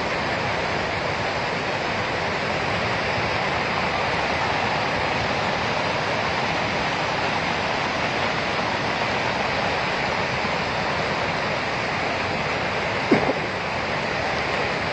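Flash floodwater from a burst dam rushing over the ground in heavy rain, a steady, even rushing noise.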